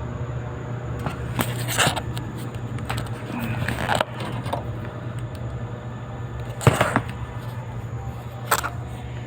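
A steady low mechanical hum, with a handful of sharp knocks and clatters scattered across it; the one about two-thirds of the way through is the loudest.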